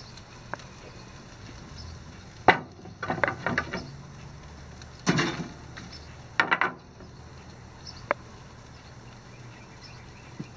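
A handful of short knocks and clatters in small clusters, from a metal spoon and tongs working barbecue sauce onto chicken pieces on a charcoal grill's grate.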